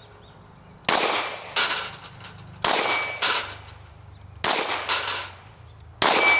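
Glock 44 .22 LR pistol fire at steel plates: four pairs of sharp cracks, the two in each pair about two-thirds of a second apart, with the ringing clang of struck steel plates.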